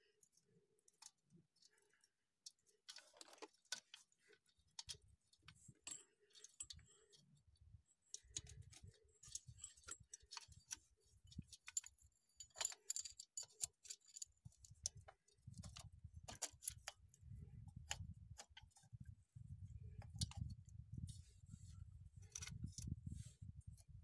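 Light metallic clicks and clinks of a roller timing chain and cam sprocket being handled and fitted at the cylinder head of a Yamaha Big Bear 350 engine. A low rumble comes and goes through the second half.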